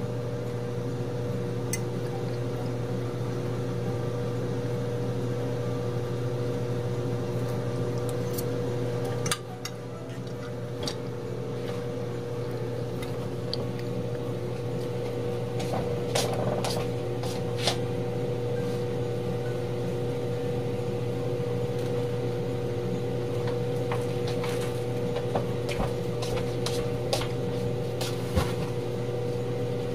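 A steady electrical hum with a low drone and a higher steady tone, dipping briefly about nine seconds in, with scattered light clicks and taps.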